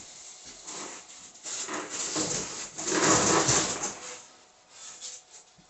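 Cardboard and foam packaging being handled and pulled off a new refrigerator: rustling and scraping, loudest about three seconds in.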